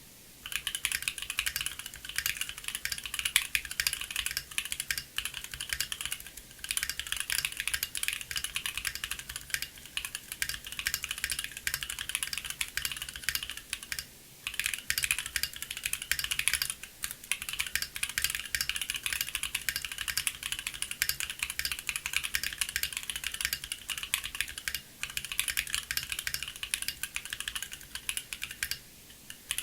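Fast continuous typing on a Bakeneko60 mechanical keyboard with Gateron Baby Raccoon linear switches on an FR4 plate and Cherry-profile keycaps, a rapid stream of key clacks broken by brief pauses. The case is filled with polyfil.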